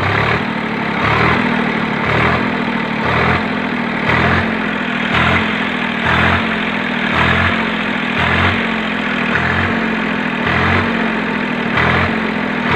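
Swaraj 744 tractor's three-cylinder diesel engine running under throttle, rising and falling in revs about once a second with an even, regular sound. There is no 'kat-kat' knock on letting off the throttle: the fault, a wrong cylinder-head shim, has been cured.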